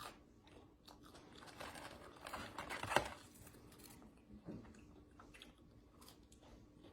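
A person chewing and crunching food, with crackly noise building to a sharp crack about three seconds in, then quieter chewing.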